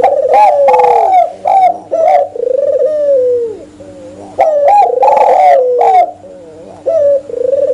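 Spotted doves and an albino Barbary dove cooing, repeated phrases of rising and falling coo notes with short pauses between them.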